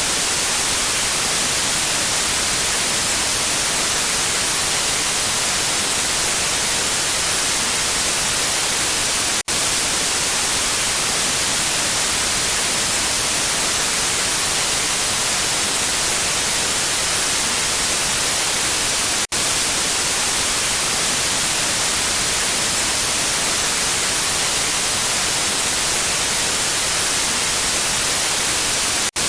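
Steady hiss of TV and radio static, lost-signal white noise, cut by two very brief dropouts about ten seconds apart.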